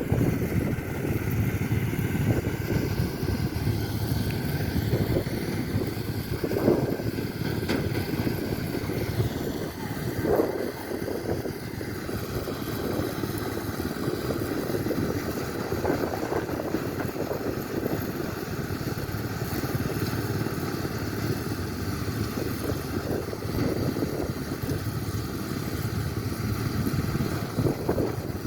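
A harvesting machine's engine running steadily, with a few brief louder swells.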